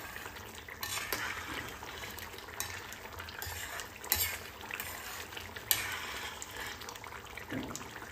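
Metal spatula stirring and scraping colocasia-leaf curry in a stainless steel pan over a gas flame, with the curry bubbling and sizzling. Sharp clinks of the spatula against the pan, the loudest about four seconds in and just before six seconds.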